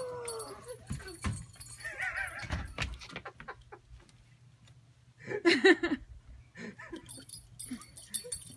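A young boy's wordless excited vocal sounds: a falling "ooh" at the start, a warbling cry about two seconds in, and a loud wavering squeal about five seconds in.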